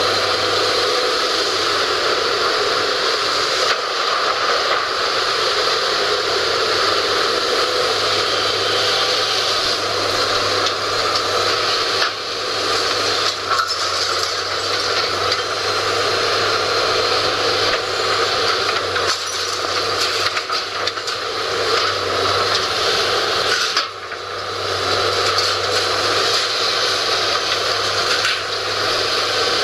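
Hydraulic demolition excavator running, with metal and debris scraping and clattering as its grapple works the wreckage. The sound eases briefly twice, about halfway through and again near the end.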